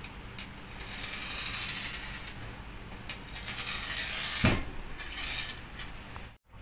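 Hand rubbing and sliding over a wooden tabletop while handling small lead airgun pellets, a scraping, rustling handling noise with one sharp knock about four and a half seconds in. The sound cuts out briefly near the end.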